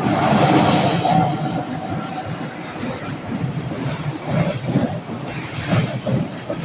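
Freight train passing close by, its wagons rumbling and clattering over the rail joints in a run of repeated knocks, with a high wheel squeal at times.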